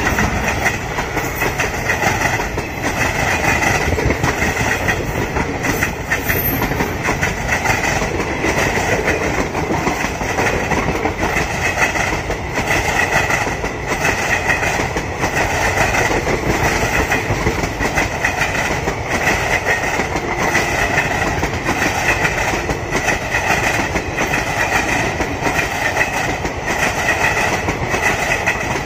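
Indian Railways express passenger coaches running past at speed, the wheels clattering over rail joints in a steady clickety-clack with continuous rolling rumble.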